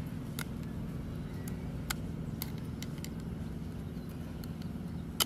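Scattered light clicks and taps as a plastic angle-grinder motor housing and a metal blade are handled, with a sharper click near the end, over a steady low rumble.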